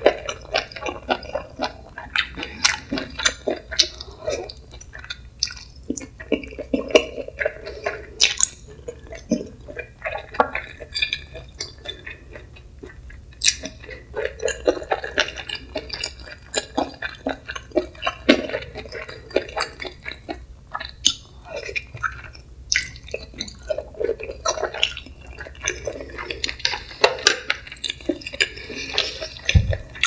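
Close-miked wet chewing and lip smacking of chewy stir-fried webfoot octopus, full of sharp irregular clicks and squelches. A single dull thump comes near the end.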